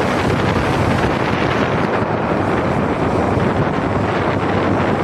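Steady, loud wind rushing over the microphone, as it does on a moving vehicle.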